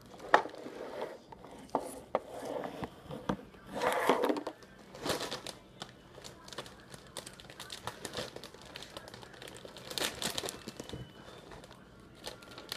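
A large plastic cereal bag crinkling and crackling in irregular bursts as it is handled and opened.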